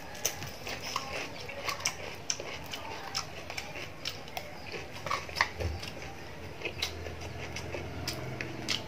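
Close-up eating sounds: a person crunching and chewing a raw vegetable stick, with irregular sharp crunches and wet mouth clicks.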